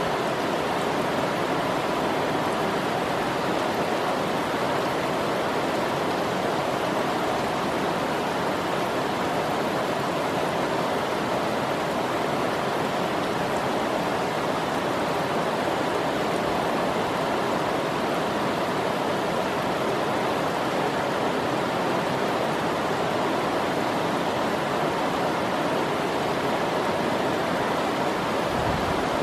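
Heavy rain pouring down steadily onto a sheet roof: a dense, even hiss.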